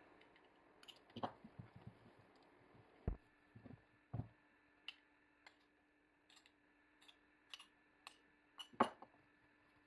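Metal spoon clinking and scraping against a small ceramic ramekin of marinade, with a few soft knocks as a whole rabbit carcass is turned over on a wooden cutting board. The sounds are faint and scattered, with the sharpest clink near the end.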